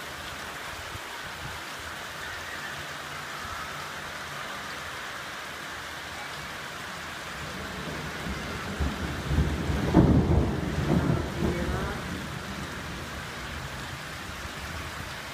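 Steady rain falling, with a rumble of thunder that builds a little past halfway, is loudest about two-thirds in, and dies away over a few seconds.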